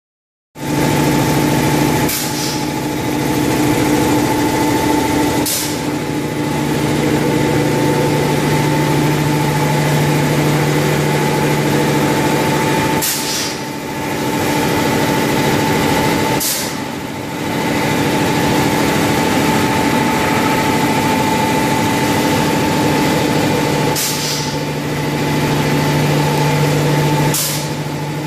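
Egg tray pulp-moulding production line running, with its Roots vacuum blower and motors giving a loud steady hum with a low drone and a higher whine. Brief hisses of air cut in six times, in pairs about three seconds apart.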